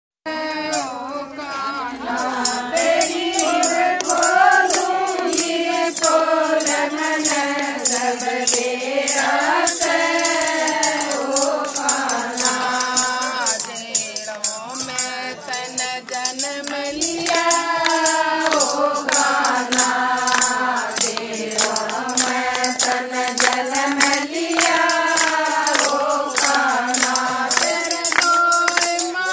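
A group of women singing a Haryanvi folk Krishna bhajan together, kept in time by a steady beat of hand claps.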